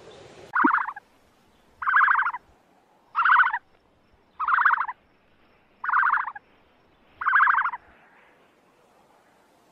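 An animal calling six times at an even pace, about every second and a half. Each call is a quick pulsing burst about half a second long.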